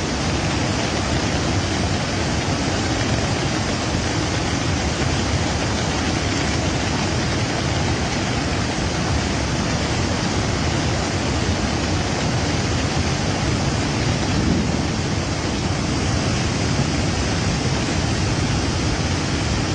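Heavy rain pouring down steadily in a thunderstorm, an even, unbroken rush of noise with no distinct thunderclaps.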